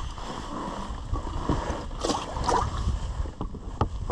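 Wind buffeting the microphone on a small fishing boat, with a few light knocks near the end.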